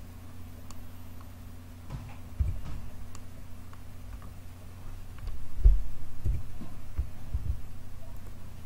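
Steady low electrical hum with a few scattered dull thumps and faint clicks from a computer keyboard and mouse in use on the desk; the loudest thump comes a little past halfway.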